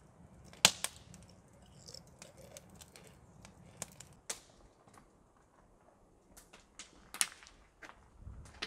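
Wood campfire crackling in a fire pit, with irregular sharp pops, the loudest a little under a second in and another cluster about seven seconds in.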